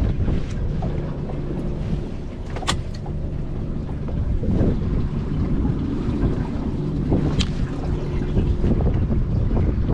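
Wind buffeting the microphone on a small boat, a steady low rumble, with two sharp clicks, about three seconds in and near the end.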